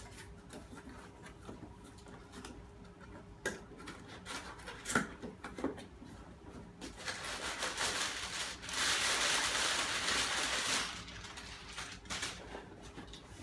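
Cardboard shipping box being torn open by hand: scattered taps and crinkles of cardboard, then a loud rough tearing and scraping for about four seconds past the middle, easing off near the end.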